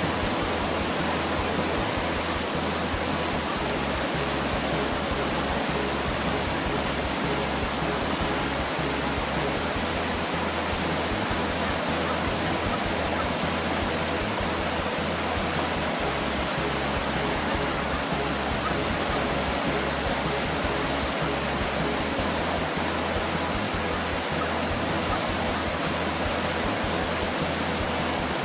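Flooded creek running high and fast: a steady, unbroken noise of rushing water.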